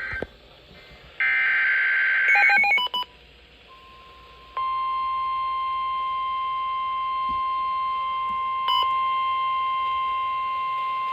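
NOAA Weather Radio alert tones. First comes a burst of the SAME digital header's warbling two-tone data, then a quick run of short beeps. From about four and a half seconds in, the steady single-pitch warning alarm tone sounds, signalling that a warning is about to be read.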